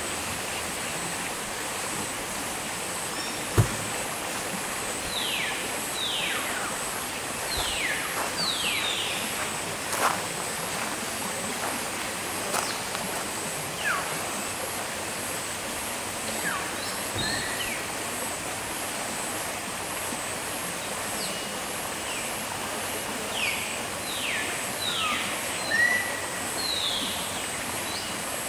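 Forest ambience: birds give bouts of quick, falling whistled notes, one bout about five seconds in and another about twenty-three seconds in, over a steady high-pitched pulsing about twice a second. A single sharp knock sounds about three and a half seconds in.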